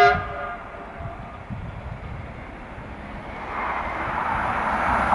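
Stadler Flirt electric multiple unit approaching along the line, its running noise rising steadily over the last couple of seconds. A short sharp tone sounds right at the start and fades within half a second.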